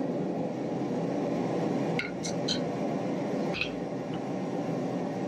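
Steady rushing hum of a propane forge burner, with a few light ringing clinks about two seconds in and another clink a little later as steel tools are set down on the anvil.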